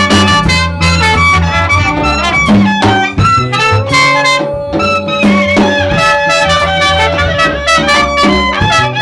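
Live jazz band playing: drum kit and upright double bass under a wind instrument carrying the melody, with one long held note in the middle.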